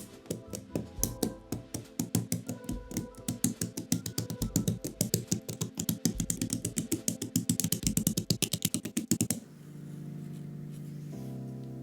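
Mechanical keyboard keystrokes, a run of sharp clicks that speeds up into rapid typing, over background music, stopping abruptly near the end and leaving only the music.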